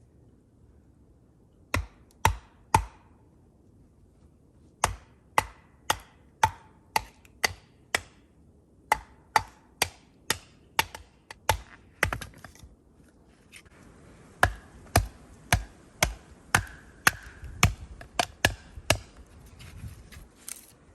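Firewood being chopped: sharp chopping strokes about two a second, in four runs with short pauses between, the first run only three strokes.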